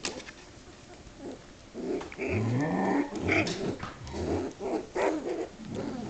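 Shetland sheepdog puppies growling in play as they wrestle: a run of short, uneven growls that starts about two seconds in and goes on for about four seconds, one of them rising in pitch.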